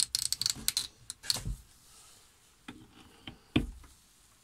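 A run of rattling clicks from a metal latch and handle on a wooden chicken-coop door being worked, then a few wooden knocks as the door is handled, the last one the loudest.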